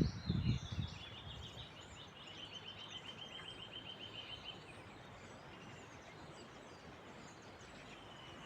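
Songbird singing a rapid trill of quickly repeated high notes, starting about a second in and lasting a few seconds, with faint calls of other birds behind it. A few low thumps come at the very start.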